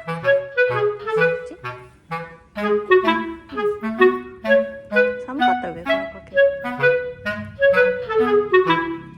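Background music: a light, bouncy tune of short, quick notes over a bass line.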